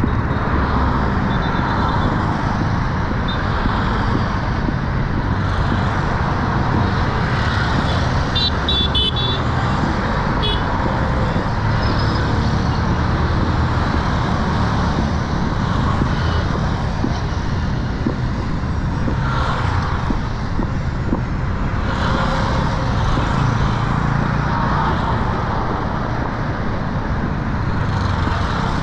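Busy road traffic: motorcycle taxis and cars passing steadily close by, with a few short horn toots about eight to ten seconds in.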